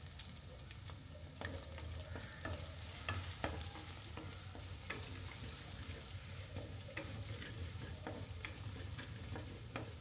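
Chopped ginger and garlic sizzling in hot coconut oil in a clay pot, with a steady hiss and frequent sharp pops and crackles, as a wooden spoon stirs them.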